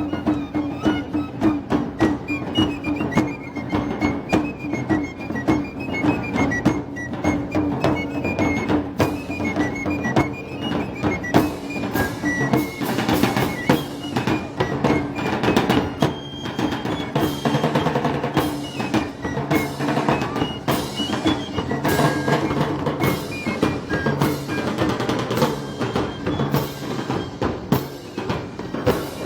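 Street band music of the Moros y Cristianos festival: a melody played over a steady beat of drum strokes.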